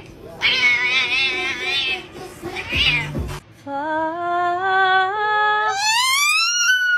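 A grey cat making wavering, meow-like cries while it eats from a hand. Then a dog howls, with a woman's voice climbing in steps alongside it. The howl finishes in a high call that rises steeply, holds and falls away.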